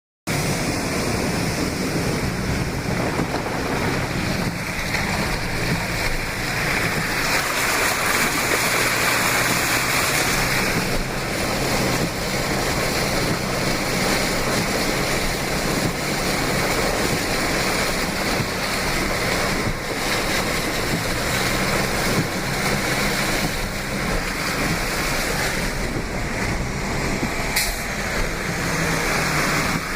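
Steady rush of floodwater, with a low, even hum underneath.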